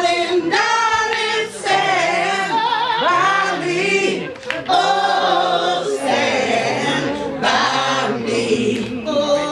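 People singing together without instruments, led by a woman singing into a microphone.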